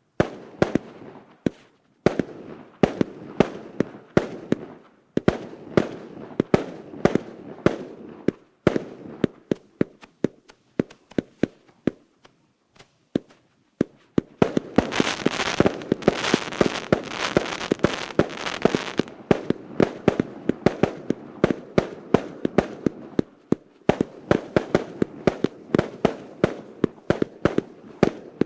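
Russkiye Ogni 'Novogodniy Bespredel' RK8064 firework battery firing a rapid string of shots and bangs, about two to three a second. About halfway through there is a short lull, then a denser stretch with a loud crackling hiss under the shots.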